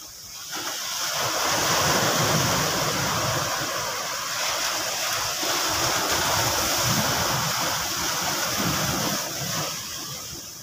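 Sea surf washing against rocks: a steady rushing that swells about half a second in and eases near the end.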